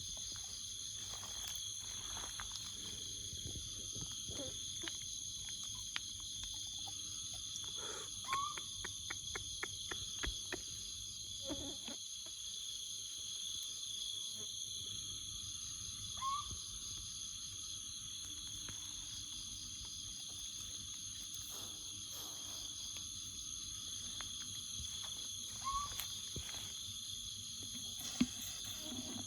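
Steady chorus of jungle insects, crickets or similar, holding several high buzzing pitches throughout. Scattered clicks and rustles break in, with a quick run of clicks about eight to ten seconds in and a short rising chirp three times.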